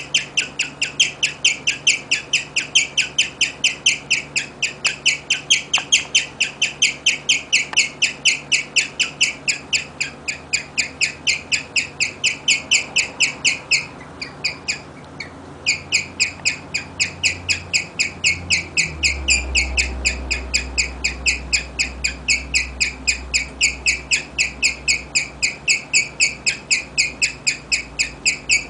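A guinea pig chirping: an unbroken string of short, high-pitched chirps, about three or four a second, with a brief break about halfway through.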